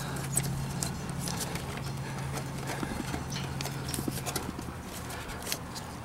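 Gloved hands working wires and a spade connector onto a heat pump's contactor terminal: scattered small clicks and taps. A low steady hum underneath stops about four seconds in.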